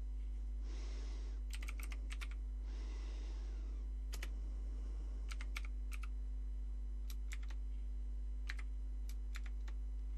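Irregular keystrokes on a clicky keyboard, about fifteen separate key presses over a steady low electrical hum. Two soft hisses come about a second and three seconds in.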